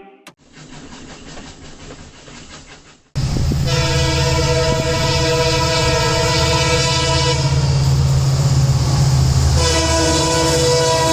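An EMD WDP4 diesel locomotive comes in suddenly loud after about three seconds of quieter, muffled noise. Its engine rumbles low while its multi-tone horn gives one long blast of about four seconds. A second blast starts near the end, falling slightly in pitch.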